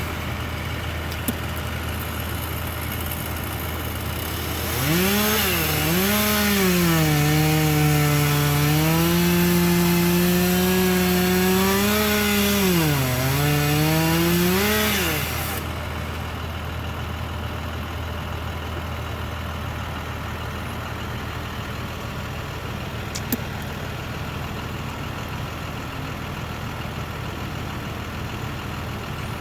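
Chainsaw revving up and cutting, its pitch sagging and recovering under load for about ten seconds, then dropping away. A low, steady engine hum runs underneath throughout.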